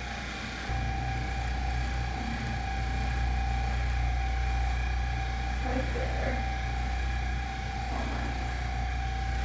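Handheld percussion massage gun running against a person's back: a steady low buzzing hum with a steady high whine over it. It steps up in level less than a second in, then stays even.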